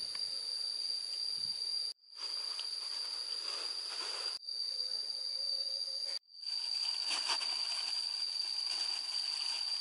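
A steady, high-pitched insect drone over a hiss of wind-blown outdoor ambience. It drops out abruptly three times, at about two, four and six seconds in, and comes straight back each time.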